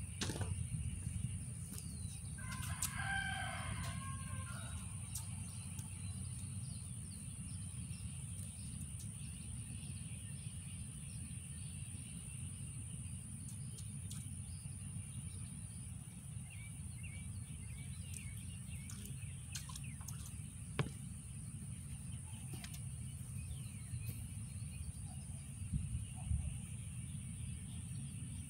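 A rooster crowing once, faintly, about three seconds in, over a steady low outdoor rumble and a constant high-pitched whine. A few faint ticks follow later on.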